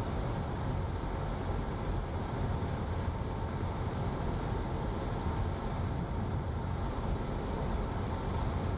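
Cessna's single piston engine and propeller running steadily at reduced approach power of about 1200 RPM, heard inside the cockpit as an even drone with a faint steady hum above it.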